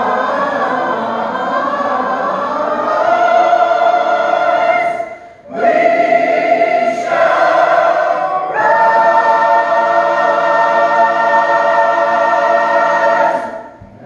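Church choir singing, holding long chords. The singing breaks off briefly about five seconds in, and the last chord is released just before the end.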